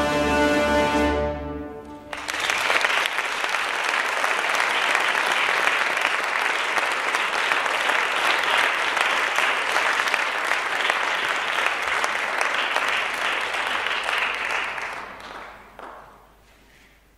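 Orchestral music ends on a held final chord about two seconds in, then an audience applauds for about thirteen seconds before the clapping dies away near the end.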